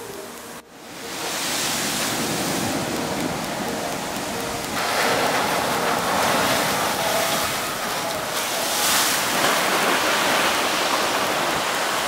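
Sea waves breaking and foam rushing up a sandy beach, a steady rush of surf that grows louder about five seconds in.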